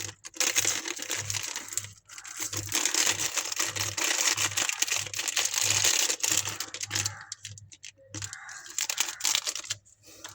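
Candy wrapper being crinkled and torn open by hand, a dense run of crackling until about two-thirds of the way through, then scattered crinkles and clicks.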